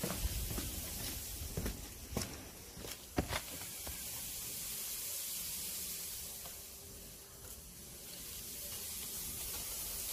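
Footsteps on concrete for the first few seconds, then a steady hiss as wet cement mortar, pumped by a hose pump, pours from the end of the hose onto a heap.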